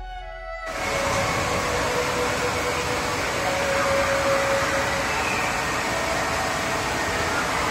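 Music cuts out in the first second, followed by the steady rushing din of an indoor water park: water pouring and splashing from the slides and play-structure features.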